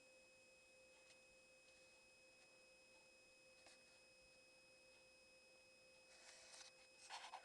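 Near silence: room tone with a faint steady high-pitched electronic tone, and two brief soft noises near the end.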